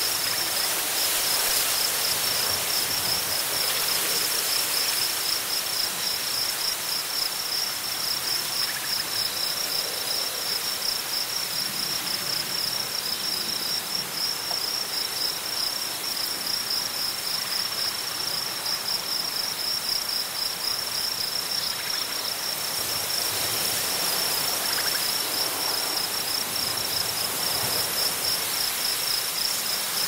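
Crickets chirping in a steady, fast-pulsing trill, over very strong wind blowing through prairie grasses. The wind gusts louder near the start and again toward the end.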